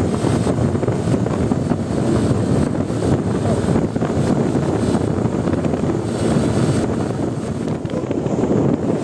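Large bus running: a steady, loud rumble of engine and road noise, mostly low, with no horn sounding.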